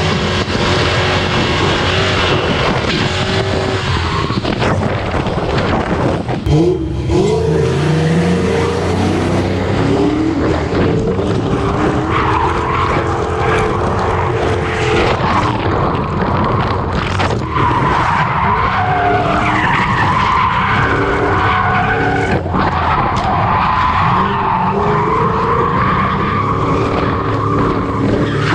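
Ford SN95 Mustang drift car's engine at high revs, its pitch climbing and dropping with the throttle, with the tyres squealing and skidding through most of the second half.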